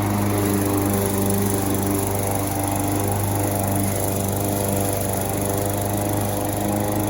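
Brute walk-behind gas lawn mower running steadily at a constant engine speed while mowing grass.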